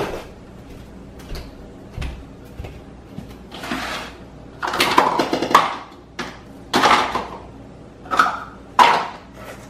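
Handling sounds at a kitchen counter: a handful of short scraping, rustling noises, the longest about five seconds in.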